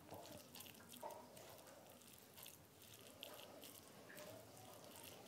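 Faint wet squishing and soft clicks of fingers mixing and mashing rice with curry on a plate.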